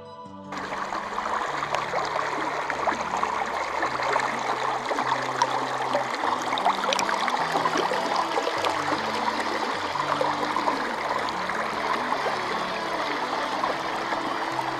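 Shallow river water rushing and splashing over flat rock ledges right at the microphone, a dense steady burble full of small splashes. It starts abruptly about half a second in.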